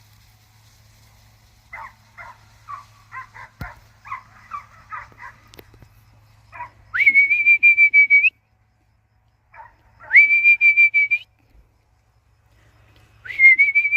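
Belgian Malinois puppies give a quick run of short high yips, then three long, steady, fluttering whistle blasts, about a second and a half each, sound.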